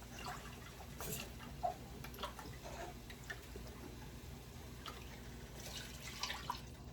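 Chicken broth being poured and dripping, with scattered light ticks and taps.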